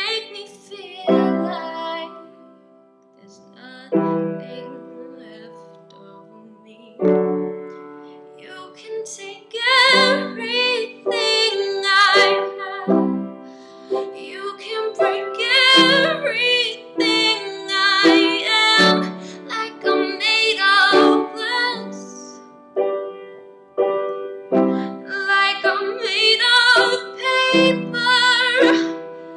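A girl sings a slow pop ballad to her own piano-sounding keyboard accompaniment. For the first several seconds the keyboard plays slow chords with little singing. About ten seconds in her voice comes in strongly, with vibrato on the held notes.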